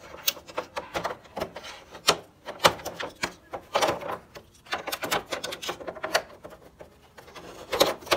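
Irregular plastic clicks and knocks as the swing louvers of a Gree wall-mounted air conditioner's indoor unit are tapped and popped out of their clips, with a few louder knocks among lighter ticks.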